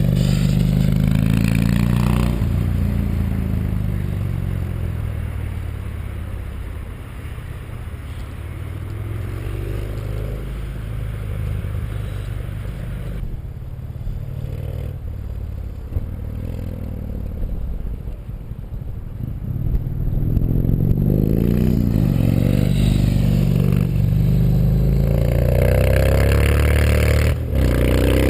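Yamaha MT-01's big air-cooled V-twin running through an Akrapovic full titanium exhaust, with the catalysts and EXUP valve removed, while ridden. The engine is loud at first and its pitch falls as the revs drop. It runs quieter for a stretch, then the revs climb again near the end, with a brief break just before the end, as at a gear change.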